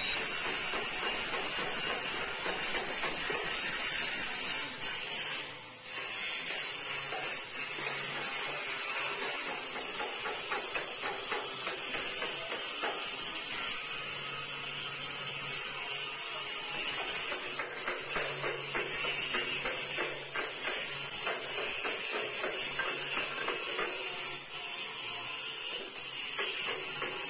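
Stick-welding arc sizzling steadily as steel square tubing and angle-bar clips are welded, broken off briefly about six times.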